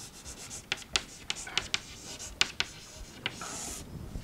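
Chalk writing on a chalkboard: a string of irregular sharp taps and short scratchy strokes, with one longer scrape near the end.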